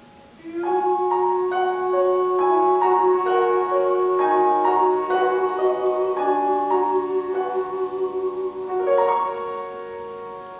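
Piano playing the closing bars of a show tune: a run of chords that ring on, then thin out and fade away near the end.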